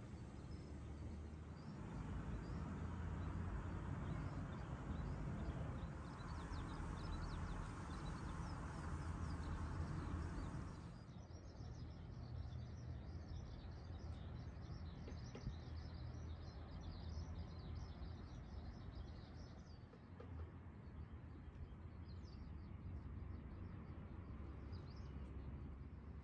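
Outdoor ambience of small birds chirping over a steady low background rumble. The background changes abruptly about eleven seconds in, and the chirps stand out more clearly after that.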